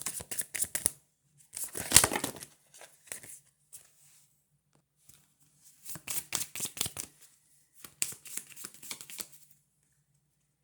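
Oracle deck cards being handled: bursts of quick, crisp card-stock flicks and rustles, the loudest about two seconds in, stopping shortly before the end.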